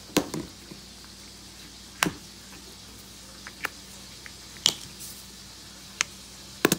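About six sharp clicks and taps spread a second or so apart: condiment squeeze bottles and their snap caps being handled and squeezed over a bowl.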